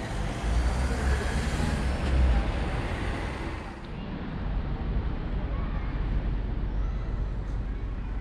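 Outdoor city-street ambience with wind rumbling on an action camera's microphone and a faint wash of traffic. The sound changes abruptly about four seconds in, losing its hiss, where the shot changes.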